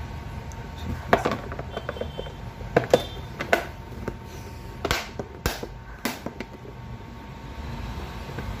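Hard plastic clicks and knocks, irregular and scattered, as the white plastic base cover of a drip coffee maker is handled and pressed back onto the machine.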